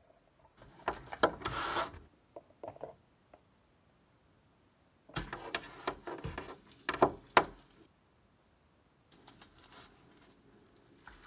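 Handling noise in three bursts of rubbing and rustling with sharp knocks, as gloved hands move the microscope and objects about on a wooden tabletop.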